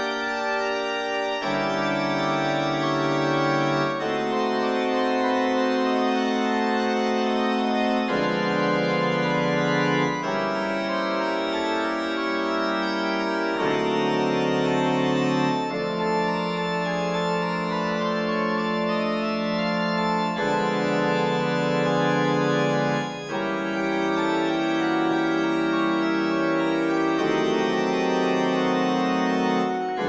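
Background music: slow, sustained chords that change every two to four seconds.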